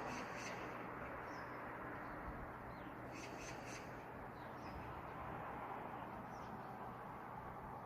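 Small birds chirping over a steady outdoor background hiss. There is a quick run of high chirps near the start and another about three seconds in, with a few single chirps between.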